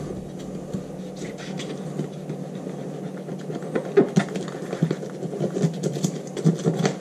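Fillet knife cutting into a crappie on cardboard: a run of small scratchy clicks as the blade works through the fish, coming thicker in the second half.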